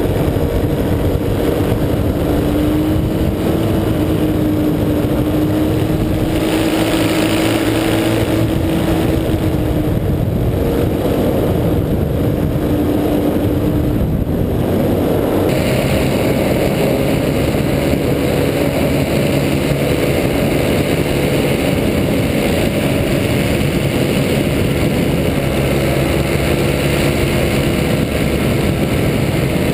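Paramotor (powered paraglider) engine running steadily in flight, its hum wavering slightly, with air rushing past; the engine note shifts and the hiss grows about halfway through.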